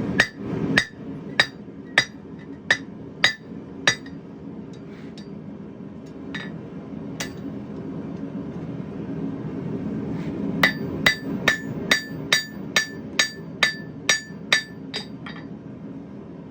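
Hammer blows on hot steel over an anvil, each with a short metallic ring, drawing out the eye of a forged bottle opener. A steady series of strikes is followed by a pause, then a faster run of about two blows a second.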